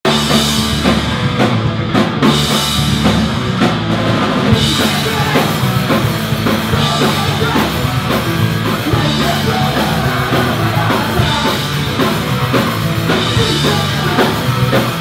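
Loud punk rock music: a full drum kit keeping a fast, steady beat under electric guitars.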